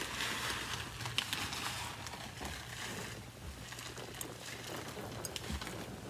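Uncooked rice grains scattered by hand onto a carpeted floor: a soft patter and scattered light ticks, with a few soft footsteps on the carpet.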